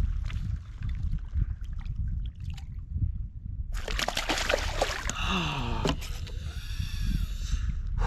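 A freshly hooked snapper thrashing at the kayak and splashing water, in a loud burst of splashing that starts about four seconds in and lasts about four seconds. Wind rumbles on the microphone throughout.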